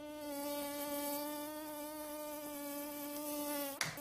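A man's vocal imitation of a mosquito: a steady buzzing whine held for almost four seconds, with a short break near the end before it starts again.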